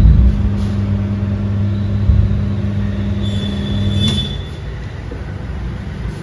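A machine hums steadily and low, then stops about four seconds in. There is a heavy thump at the start and another about two seconds in, as a motorcycle tyre is worked off its rim.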